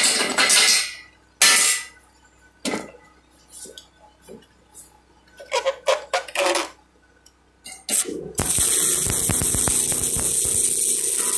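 Sharp metallic clinks and knocks at uneven intervals, then about eight seconds in a stick-welding arc strikes and keeps running with a steady crackling hiss as a 7018 electrode burns.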